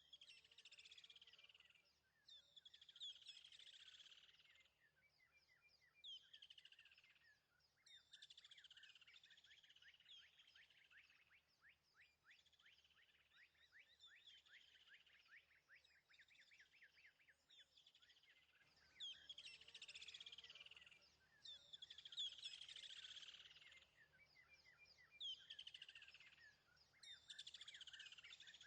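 Faint birdsong: short phrases of quick, falling notes and rapid trills repeated every second or two, over a faint low hum.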